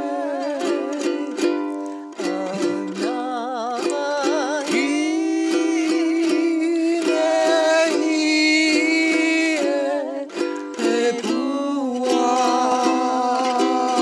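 A man and a woman singing a Hawaiian song together, some notes held with vibrato, to a strummed ukulele.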